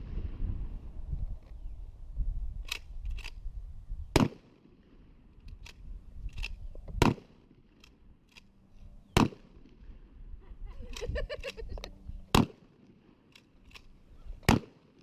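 12 gauge shotgun fired five times, one shot every two to three seconds, with lighter clicks and clacks of handling between shots.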